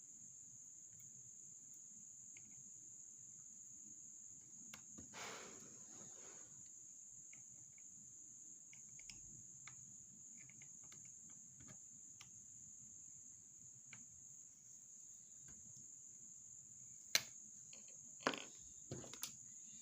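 Faint, scattered clicks and taps of a flat screwdriver and the laptop's plastic parts being handled, with a few sharper clicks near the end, over a thin steady high-pitched whine.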